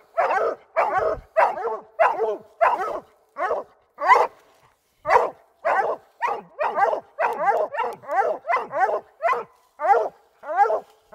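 Hound barking steadily at a tree, about two short barks a second with a brief pause about five seconds in: the steady chop of a dog that has game treed.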